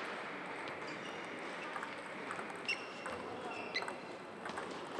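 Steady hall ambience with faint murmured voices, and a few sharp clicks of table tennis balls, two of them ringing about a second apart near the middle.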